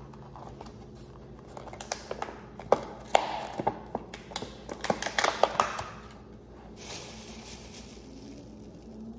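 Clear plastic herb packaging crinkling and crackling as it is handled. A dense run of sharp clicks and rustles builds from about a second and a half in and stops at about six seconds, followed by a softer, hissy rustle of plastic.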